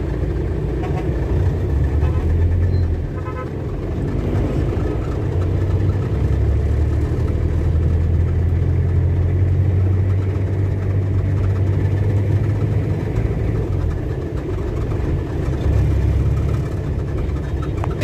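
Steady low engine rumble and road noise from inside a moving vehicle driving in traffic.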